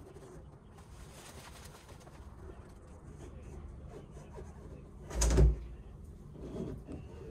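Hands working the carpeted rear bulkhead trim panel in a car's boot: soft rubbing and rustling, then one sharp, heavy thump about five seconds in and a lighter knock a second or so later.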